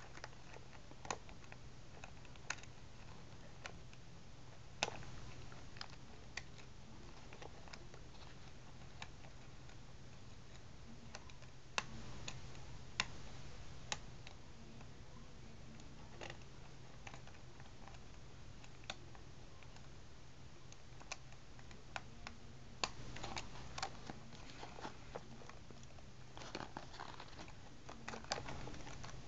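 Faint, irregular small clicks and scrapes of a lock pick and tension wrench working the pins inside a Brinks deadbolt's cylinder during single-pin picking, the clicks coming more often in the last few seconds.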